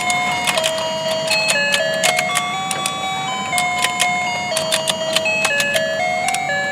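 Battery-powered rotating fishing game toy playing its electronic tune through its small built-in speaker: a simple beeping melody stepping from note to note. Frequent sharp plastic clicks from the toy run under it.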